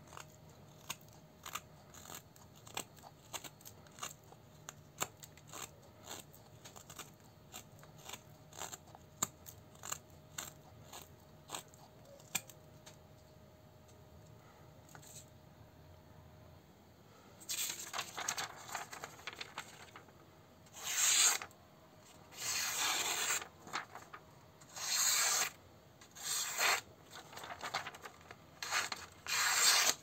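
The carbon-steel blade of an automatic knife shaving a wooden stick, with short scraping cuts about once a second. About halfway through, these give way to a series of louder, longer hissing swishes as the blade slices through sheets of paper.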